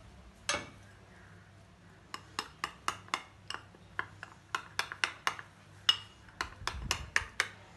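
Metal spoon clinking against a small ceramic bowl while stirring cocoa powder and cornflour into a little milk to make a lump-free paste. One clink comes about half a second in, then quick, irregular clinks at about four a second from about two seconds in.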